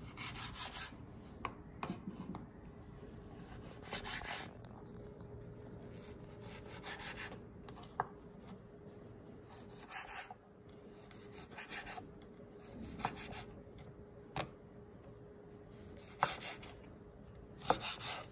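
Kitchen knife slicing and dicing sausage on a wooden cutting board: scraping strokes as the blade draws through, with sharp taps where it meets the board, at uneven intervals of a second or two. A faint steady hum joins in after about five seconds.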